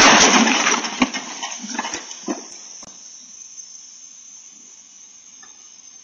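A car crashing into a parked SUV: a loud crunch of metal and plastic at the start, then scraping and a few separate knocks as the cars settle, dying away after about three seconds. Heard through a doorbell camera's microphone, which leaves a steady hiss.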